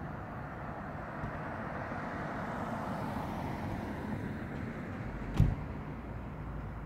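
A vehicle passing on a nearby street, a rushing noise that swells and then fades, with a single sharp knock a little over five seconds in.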